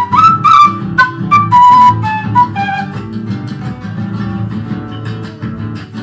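PVC quena playing a quick melody of short notes, opening with an upward slide, over plucked guitar accompaniment. The flute drops out about halfway and the guitar carries on alone.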